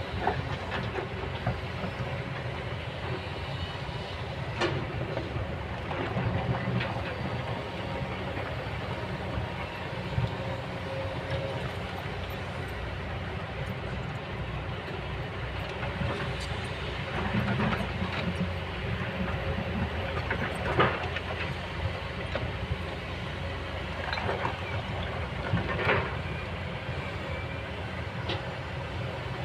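Kobelco hydraulic excavator's diesel engine running steadily, swelling at times under load, with a few sharp metallic clanks from the machine at work.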